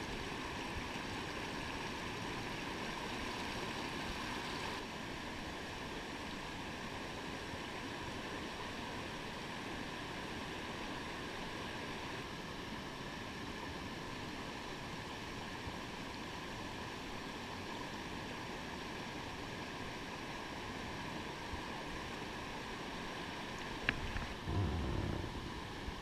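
Steady rush of a shallow rocky creek running over riffles. Near the end there is a sharp click followed by a brief low bump.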